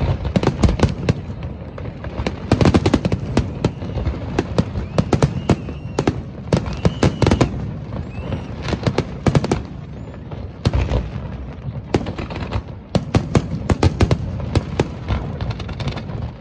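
Fireworks display going off, a rapid stream of sharp bangs and crackles from aerial shells bursting, coming in flurries with short lulls between.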